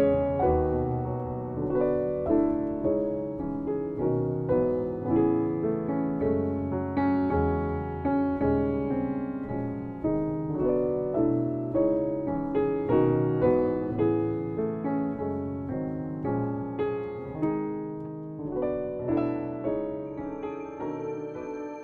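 Background piano music: gentle, slow notes struck one after another with a soft sustaining decay.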